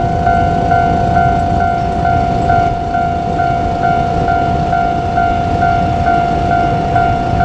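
Japanese level-crossing warning alarm ringing with a steady repeating two-tone clang, about two strokes a second, over a low rumble.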